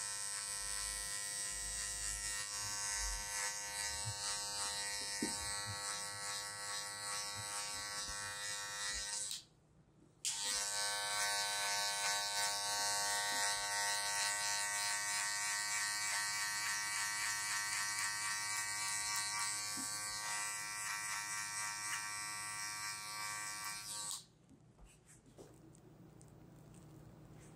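Electric hair clippers buzzing steadily as they cut. They switch off for about a second around a third of the way in, run again, and switch off a few seconds before the end.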